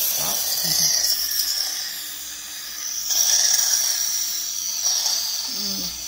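Dental scaling with suction in a patient's mouth: a steady high-pitched hiss and whine from the scaler and suction tube, strongest in the first second and again from about three to five seconds in.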